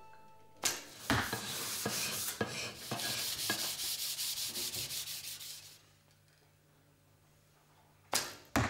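A wooden bow being sanded by hand: a run of rough, uneven rubbing strokes of abrasive on wood. The strokes stop about two-thirds of the way through, and near the end come two short, sharp sounds close together.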